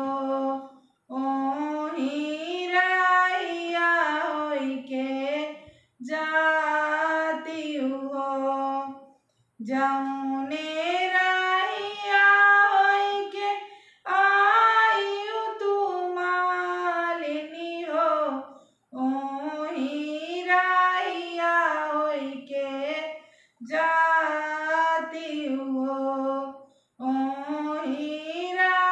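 A woman singing a Bagheli wedding folk song (vivah geet) solo with no instruments, in phrases of about four to five seconds broken by short pauses for breath.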